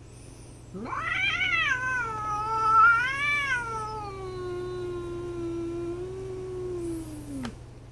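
A cat's long, drawn-out yowl, the hostile caterwaul of a cat facing a rival. It rises sharply, wavers up and down twice, then settles into a low steady moan before falling away and stopping about seven seconds later.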